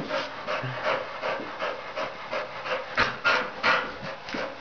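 Staffordshire terrier panting rapidly, about three breaths a second, while straining after a balloon.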